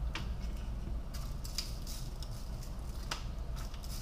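A few soft ticks and crinkles from latex-gloved fingers sprinkling seasoning salt over raw chicken wings on a wire rack in a foil-lined tray, over a steady low hum.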